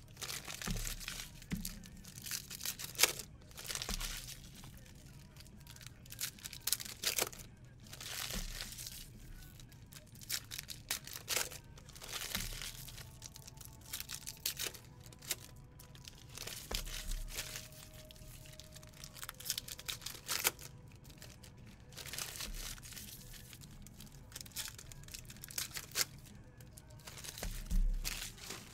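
Trading cards being handled and sorted by hand: irregular quick swishes and slides of card stock, with soft taps as cards are set down onto stacks.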